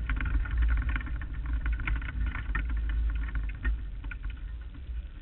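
Onboard sound of a non-wing Lightning Sprint race car's engine running on a dirt track, with a heavy low rumble. The level drops about three and a half seconds in as the car slows.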